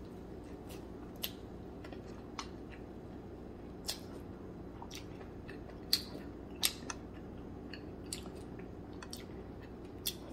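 A person eating close to the microphone: quiet chewing of rice and sips from a spoon of clam soup, with a few small sharp clicks and taps scattered through, over a steady low hum.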